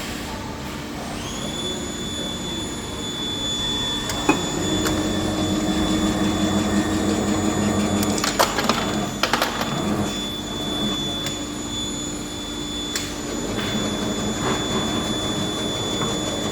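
Mini desktop plastic injection molding machine running: a steady hum with a high whine that sets in about a second in, and a few sharp clicks and knocks, the loudest about eight seconds in.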